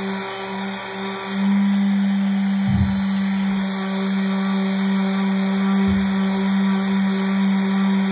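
Random orbital sander running steadily with a felt-faced pad on an inlaid panel, its motor hum getting louder about a second and a half in. Two brief low thumps come a few seconds apart.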